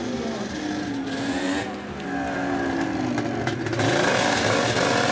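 Snowmobile engine revving, its pitch sliding down and back up. A loud rushing hiss joins about four seconds in.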